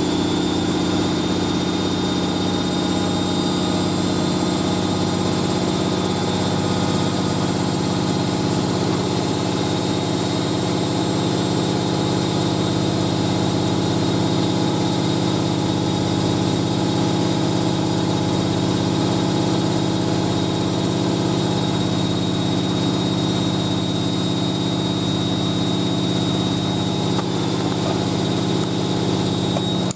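Hoover A3060 Electronic 1100 washing machine spinning its drum at speed, a steady even drone with rattle and vibration from the cabinet.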